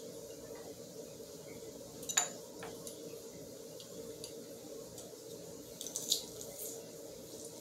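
A few sharp plastic clicks from a hand-held plastic garlic press being worked over a bowl: a loud one about two seconds in and a short cluster around six seconds. Under them runs a quiet, steady low hum.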